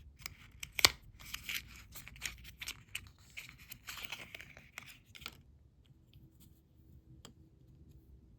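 Close crackly handling noises of craft materials, rustling and crisp clicks, with one sharp click a little under a second in. They stop after about five seconds, leaving a few faint ticks.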